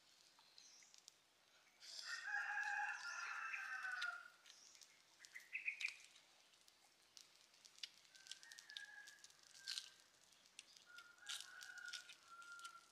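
A rooster crows once, loud, about two seconds in, the call lasting about two seconds and dropping at the end; two fainter, shorter calls follow later, with scattered light clicks.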